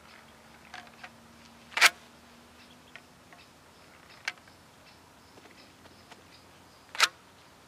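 Carp throwing stick whipped to fire baits out: two loud, sharp whooshes about five seconds apart, with a few fainter clicks between.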